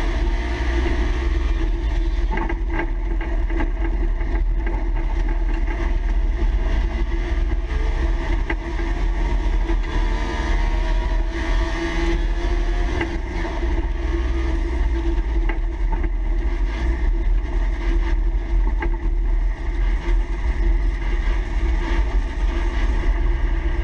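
Trabant stock car's engine running hard on a dirt track, heard from inside the stripped cabin over a heavy low rumble from the car bouncing along. The engine pitch rises in the first second, and short knocks and rattles come now and then.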